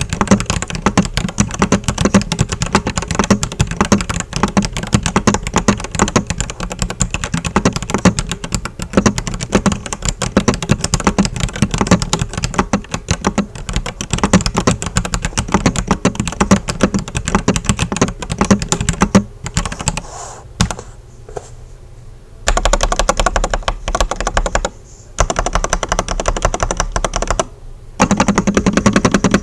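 Fast typing on a RoyalAxe x ProtoArc F75 wired 75% mechanical keyboard: a dense, rapid clatter of keystrokes. About twenty seconds in, it thins to a few scattered presses. It then picks up into quick spells of typing again, broken by two short pauses near the end.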